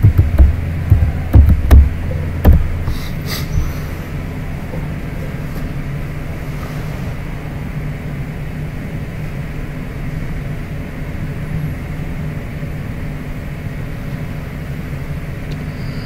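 Computer keyboard typing: about eight quick, heavy key strikes in the first three seconds, followed by a steady low hum with hiss.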